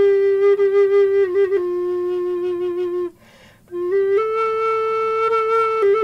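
Wooden Native American-style flute played slowly in long held notes. It steps down in pitch about a second and a half in, stops for a breath about three seconds in, then comes back and rises to a higher held note, dropping again near the end.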